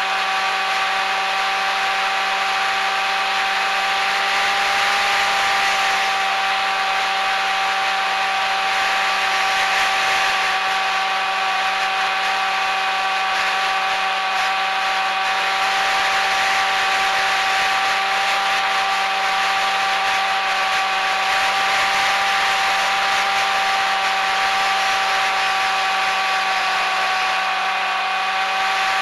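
Electric motors and propellers of a small FPV model aircraft, heard through its onboard camera's microphone: a steady whine holding nearly one pitch, with a dip near the end, over wind hiss.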